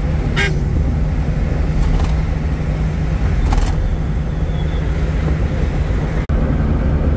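Steady low drone of a 1990s Maruti Omni van's small three-cylinder petrol engine, heard inside the cabin while cruising at about 70–80 km/h, mixed with road and wind noise. A few short rushes of noise come through, and the sound breaks off for an instant near the end.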